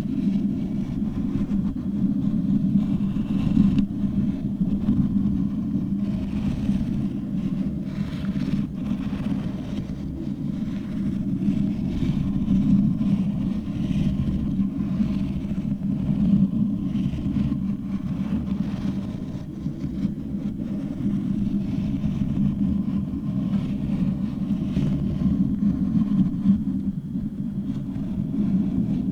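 Fingers and long nails rubbing and scratching directly on a microphone, giving a continuous, dense low rumble with faint scratchy texture on top.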